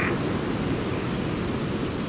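Steady outdoor ambient noise, a low rumble under a soft hiss, with a faint high bird chirp just under a second in.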